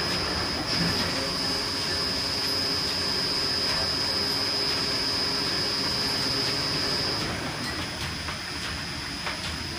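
Wool spooling machine running with a steady mechanical rattle and a high whine. About seven seconds in the whine weakens and the running gets quieter.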